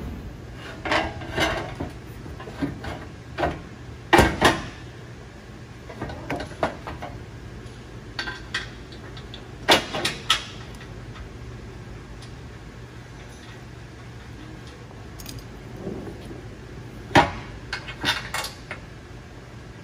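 Steel bumper brackets and plates clanking and knocking against each other as they are fitted together by hand: irregular sharp metallic knocks with pauses between, the loudest about four seconds in, at ten seconds and near the end.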